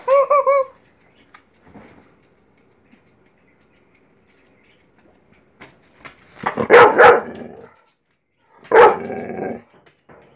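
A dog barking: a cluster of loud barks about six and a half seconds in and another bark near nine seconds, with near quiet before them.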